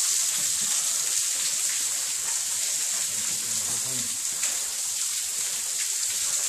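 A waterfall pouring into a sandstone arch: a steady hiss of falling water.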